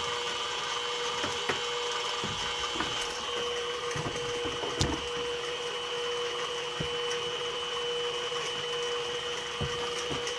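Steady hum of a CNC-converted mini mill, with a high whine over it and a few faint clicks scattered through.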